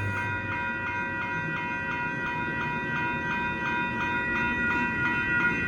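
Electronic grade-crossing bells ringing in a rapid, even rhythm while a two-car Siemens S70 light rail train rolls past with a low rumble.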